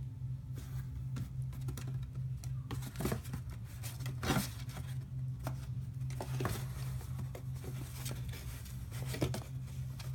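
Kittens scratching and scrambling in a cardboard box: irregular scrapes, taps and rustles over a steady low hum.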